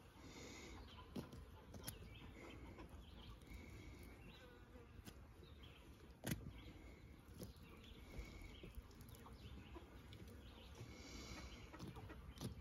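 Near silence: faint outdoor ambience with a soft high chirp repeating every second or so, and a single sharp click about six seconds in.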